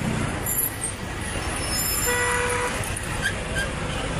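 Steady road traffic noise with a short horn toot about two seconds in.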